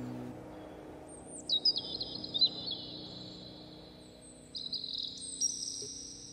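Songbirds calling in two bouts of high chirps and thin drawn-out whistles, some sliding in pitch, over the fading low sustained notes of music.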